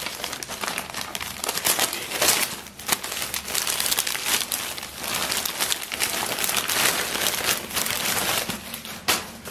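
Plastic courier mailer bag crinkling and rustling steadily as it is handled and opened, with a plastic-wrapped box being drawn out of it.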